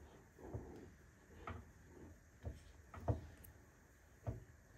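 Spoon stirring thick oats porridge in a non-stick saucepan, with about five soft knocks of the spoon against the pot between quiet scraping sounds.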